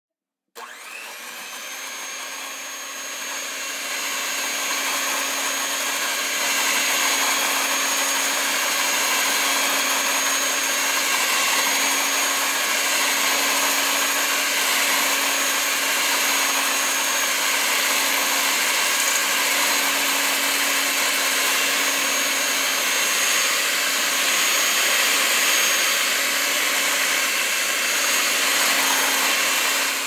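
Electric beater switched on and running steadily: a motor hum with a high whine over it. It starts abruptly about half a second in and grows louder over the first few seconds.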